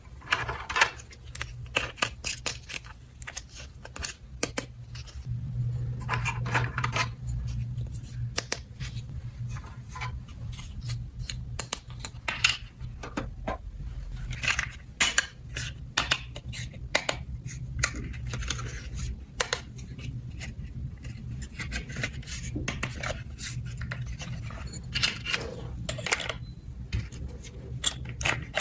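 Small hard pieces being handled, with many sharp clicks, taps and scrapes in quick irregular succession, over a steady low hum.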